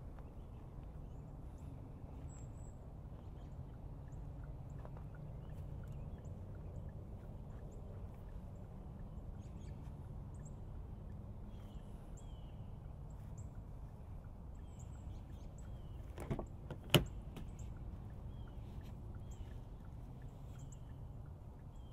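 Steady low outdoor rumble with faint bird chirps. About three-quarters of the way through come two sharp clicks, the second much louder: the rear door of a Kia Niro being unlatched and opened.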